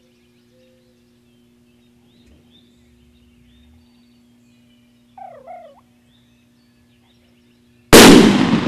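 A wild turkey gobbler gobbles once about five seconds in, over faint songbird calls. Near the end a 20-gauge Remington shotgun fires one very loud shot that dies away over about a second.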